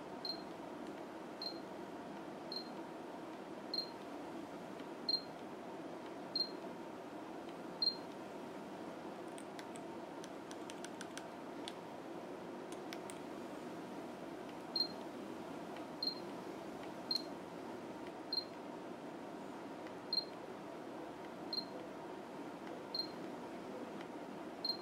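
Samsung NX200's autofocus-confirmation beep: a short high beep about every 1.2 s, each marking focus locking on a half-press of the shutter. Seven beeps, then a pause of several seconds with a few faint clicks, then eight more beeps, over a steady low hiss.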